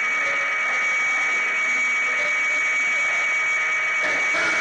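HO-scale model train running on its track, close up: a steady high whine over a continuous rolling hiss.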